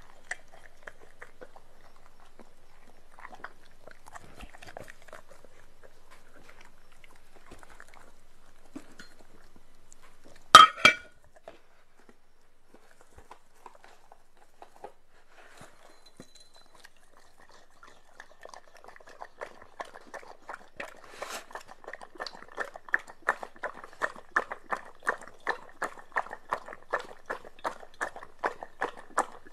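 Doberman chewing soft food off a plate, faint clicks, then one sharp knock about a third of the way in. From about two-thirds through, the dog laps liquid from a bowl in an even run of wet ticks, about two a second, getting louder.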